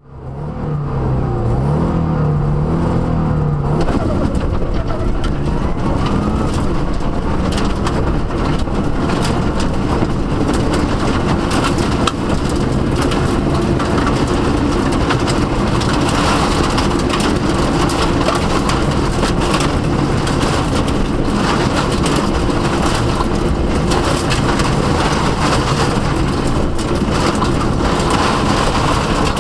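Inside a Subaru Impreza WRX STI rally car: the turbocharged flat-four engine revs up and down for about four seconds. The car then pulls away and runs hard under load, with loud road noise and many sharp gravel hits on the underside.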